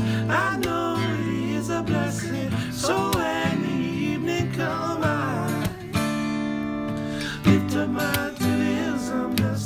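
Acoustic guitar strumming with a man's layered singing voice over it. The singing eases off about six seconds in, leaving strummed chords ringing.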